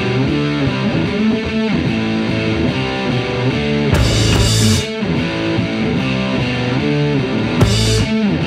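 Background rock music with electric guitar, with two short noisy swells, one about four seconds in and one near the end.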